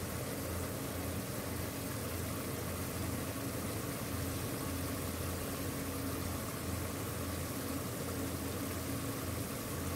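Steady hum and hiss of a pot of onion-tomato masala simmering on a stove, its liquid bubbling, with a constant low drone under it.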